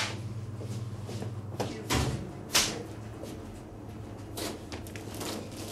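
Sharp knocks and thuds of arrows striking packaged goods on supermarket shelves, three clear ones at the start and about two and two and a half seconds in, the last the loudest, over a steady low hum.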